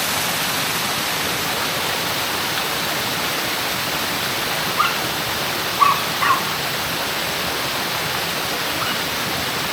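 Shiraito Falls: many thin streams of water falling over a rock face, a steady rushing of running water. About five to six and a half seconds in come three short, high yelps, and a faint one near the end.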